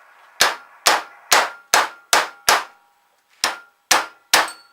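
Hammer blows ringing on steel, striking the Winget concrete mixer's shaft and bearing to drive the seized bearing off. About ten evenly paced clanging strikes, with a short pause about three seconds in.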